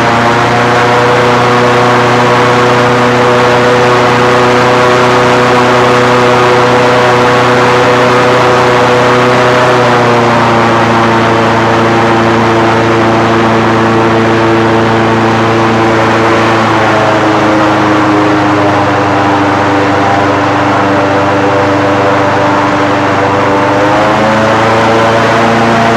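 Airboat engine and propeller running at speed. The engine note drops about a third of the way in, drops again a little past halfway, and climbs back up near the end.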